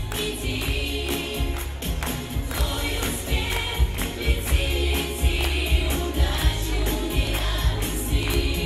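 Children's pop vocal ensemble singing together over backing music with a steady beat.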